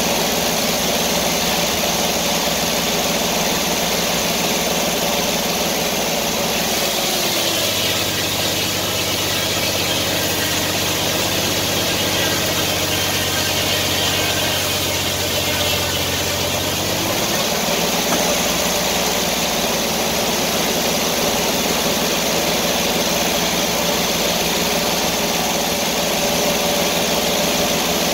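Sawmill engine running steadily. About a quarter of the way in, its note drops lower for roughly ten seconds, then climbs back to its earlier pitch.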